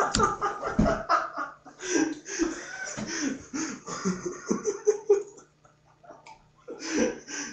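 A man laughing in a rapid run of bursts for about five and a half seconds, then one more short burst of laughter near the end.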